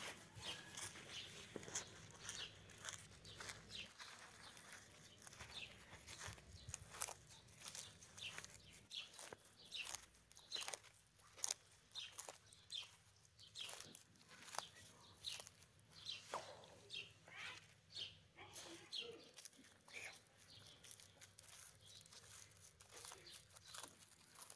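A tortoise biting and tearing fresh green leaves: quiet, irregular crisp crunches, about one or two a second.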